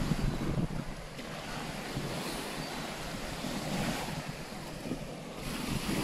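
Small Baltic Sea waves washing onto a sandy shore and along a wooden groyne, a steady hiss of surf that swells softly a couple of times, with light wind buffeting the microphone.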